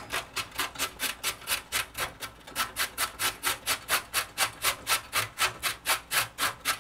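A raw carrot grated on the coarse side of a stainless-steel box grater: a steady run of short scraping strokes, about three a second.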